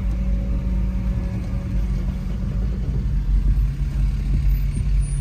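Car engine running at low speed, heard from inside the cabin as a steady low hum.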